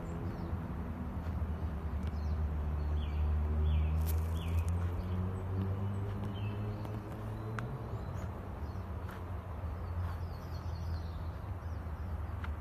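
Small birds chirping: short falling chirps in little groups of two or three, over a steady low rumble.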